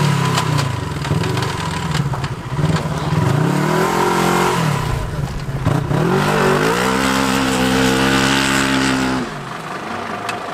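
An off-road 4x4's engine revving in repeated surges, rising and falling in pitch, then held high for a couple of seconds before dropping back sharply near the end. A few sharp knocks sound around the middle.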